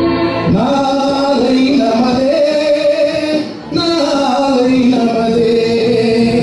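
A man singing through a microphone and hall PA, drawing out long held notes that slide between pitches, with a short break for breath about three and a half seconds in.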